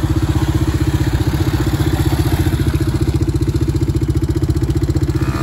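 Youth ATV's small engine running at a steady throttle, an even, rapid pulsing note.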